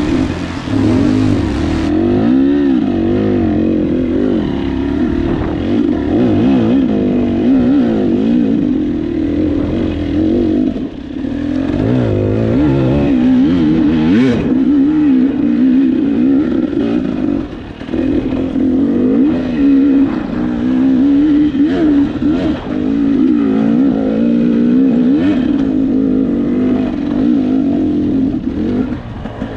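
Hard enduro dirt bike engine revving up and down in constant quick bursts of throttle as the rider works the bike up a technical climb. The engine drops briefly twice, and a sharp knock comes about fourteen seconds in.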